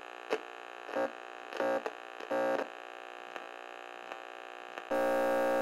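Intro sting: a sustained electronic drone chord, broken by four short glitchy stabs about 0.7 s apart in the first three seconds, then turning louder and fuller near the end.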